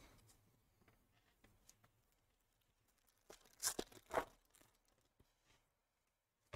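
Foil wrapper of a Bowman Chrome baseball card pack torn open by hand: a few short crinkly rips a little over three seconds in, the loudest two about half a second apart.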